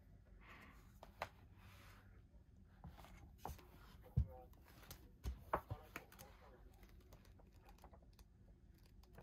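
A thick paper magazine handled on a desk: scattered soft taps and knocks, the loudest about four seconds in, and a short cluster a second later as it is opened and its pages are turned.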